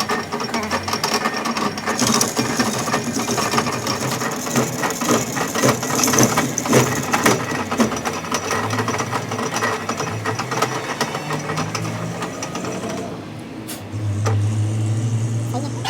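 A workshop machine running with a fast, dense rattling clatter. It eases off about 13 seconds in, and a steady low hum follows.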